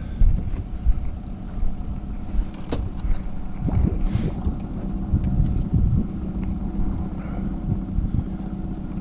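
Outboard motor running steadily with a low hum, with wind rumbling on the microphone and a few short knocks.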